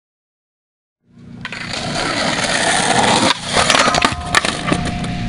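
Skateboard grinding down a metal handrail. A scraping hiss builds up about a second in, then comes a cluster of sharp clacks as the board lands on concrete, and the wheels roll on.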